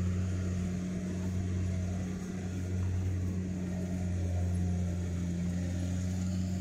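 Rice combine harvester's engine running with a steady low hum.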